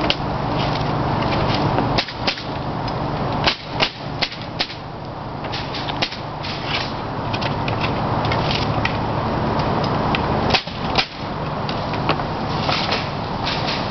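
Pneumatic nailer firing stainless steel nails through cedar shakes, a sharp crack with each shot, coming in irregular runs of quick shots over a steady low hum.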